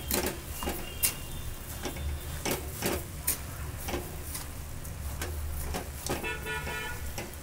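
Metal spoon stirring grated carrots and sugar in a steel kadhai, a run of irregular scrapes and clicks against the pan.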